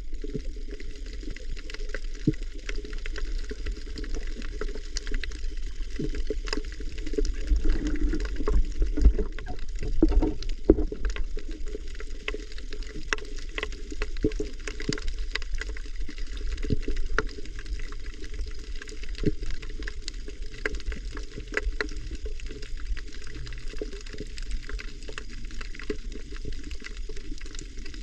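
Water heard through a camera held underwater: a muffled wash with a low rumble and many sharp, scattered clicks and crackles. The wash swells briefly about a third of the way in.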